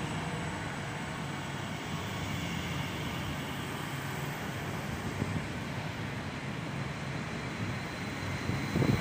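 Bombardier Talent 2 electric multiple unit moving along the station platform: a steady rumble of wheels on rails with motor and rolling hiss. A brief louder thump comes near the end.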